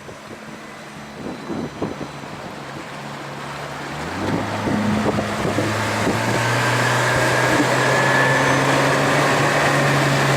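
Boat motor running, getting louder about four seconds in as the boat gets under way, with a rising rush of wind and water noise.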